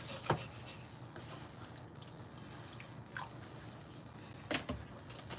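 Wooden spoon stirring ground beef in watery gravy in a cast-iron skillet, with soft wet squishing and a few short scrapes and knocks against the pan bottom as it scrapes up the browned bits.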